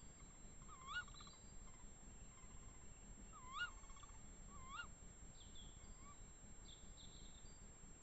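Tawny owl giving three short calls, each rising then falling in pitch: one about a second in and two more about three and a half and five seconds in. Fainter, higher calls follow near the end.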